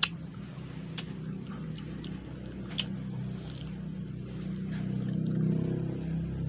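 A steady low motor-like hum with several even tones, swelling louder over the last couple of seconds. Just at the start comes a sharp click as the skewered strawberry knocks the glass bowl of ube dip, then a few softer clicks.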